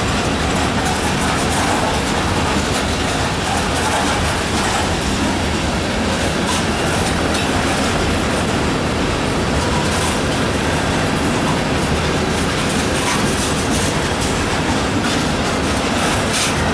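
Covered hopper cars of a slow BNSF grain train rolling past: steady rumble of steel wheels on the rails, with a few sharp clicks as wheels pass over rail joints.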